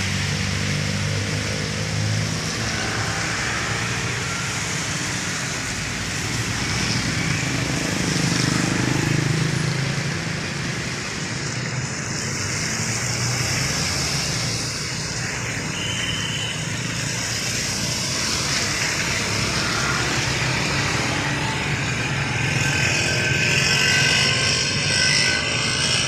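Road traffic passing on wet asphalt: cars and motorcycles driving by with engines running and tyres swishing through the water on the road.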